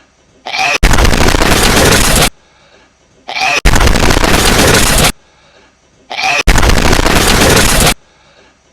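Hedgehog sneeze on a loop: a short squeaky rising sneeze, each followed by a very loud, distorted blast lasting about a second and a half. The pair repeats about every three seconds, three times here.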